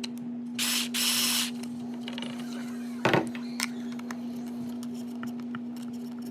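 Plastic parts and a small screw being handled as the rear spoiler is taken off an RC buggy's chassis: two short rustles about a second in, a sharp click about three seconds in, and scattered light taps, over a steady low hum.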